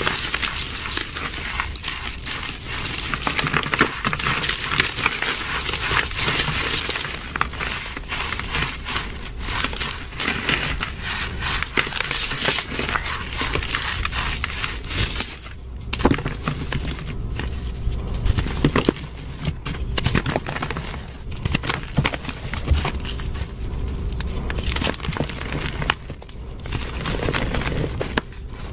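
Reformed gym chalk, dyed and mixed with glitter, crunching and crumbling as a bare hand squeezes and crushes it: a dense crackle of small snaps with powder sifting. Past the middle, the crunching thins into more separate cracks with soft thuds.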